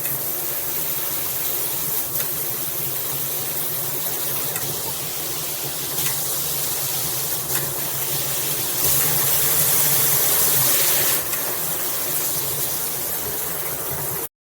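Cobbe handheld shower head spraying water: a steady rushing hiss that swells for a couple of seconds about nine seconds in, then cuts off abruptly near the end.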